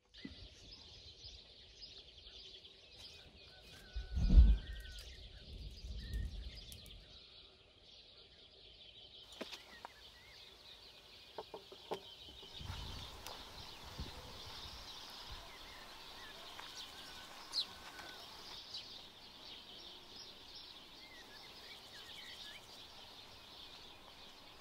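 Outdoor rural ambience: small birds chirping now and then over a steady high hiss. A loud low thump comes about four seconds in, with a few light clicks later.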